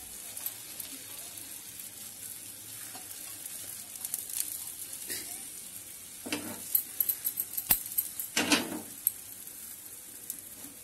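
Oil sizzling and crackling under a methi paratha frying on a hot oiled tawa over medium heat. A cluster of sharper crackles and spits comes about two-thirds of the way through.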